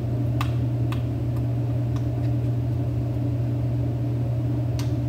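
Steady low mechanical hum, with a few faint light clicks over it.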